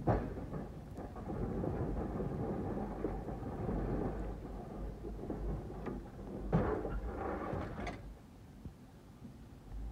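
Plow truck pushing snow with its blade: engine running under a steady scraping noise of blade and snow. There is a knock at the start and another about six and a half seconds in, and the noise drops off near the end.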